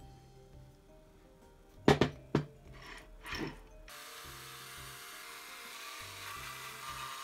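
A few sharp knocks about two seconds in, then a Ryobi cordless drill-driver runs steadily for about three seconds, backing a screw out of the motor housing, and cuts off sharply near the end. Soft background music plays throughout.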